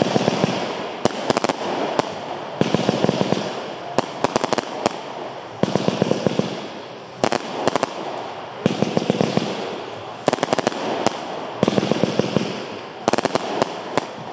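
Weco 'Dreamland' F2 fireworks battery firing shot after shot, a cluster of sharp bangs and crackles about every one and a half seconds.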